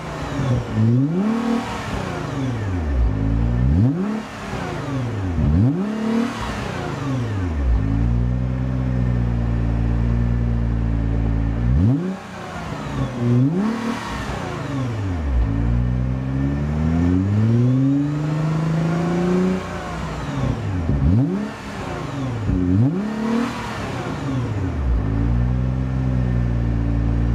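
2010 Nissan GT-R's twin-turbo 3.8-litre V6 revved in place, heard from behind the quad tailpipes. It goes through repeated quick blips up and back down to idle, settles at idle for a few seconds, then makes one slower, longer climb to high revs before more blips, and idles again near the end.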